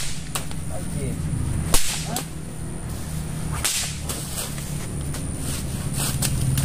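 A few sharp whip-like cracks of lashing strikes, the loudest about two seconds in, over a steady low hum.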